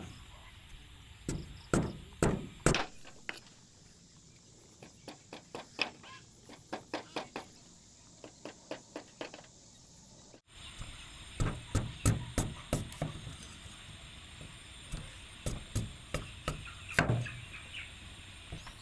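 A knife chopping and cutting into cane stalks: a run of sharp knocks, with a few heavier blows near the start and lighter, quicker strikes after.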